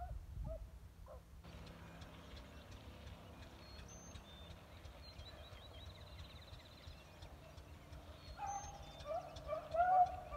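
Pack of beagles baying while trailing a scent: a quick run of short calls in the first second, then the hounds' voices coming back louder and more crowded near the end.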